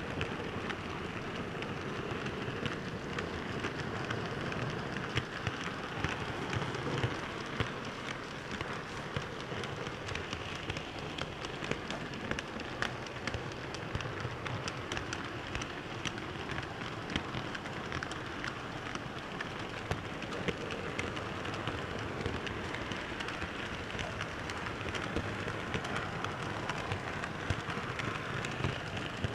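Model freight train running on its track, picked up by a camera riding on one of its wagons: a steady rolling rattle of wheels on rails with many small irregular clicks.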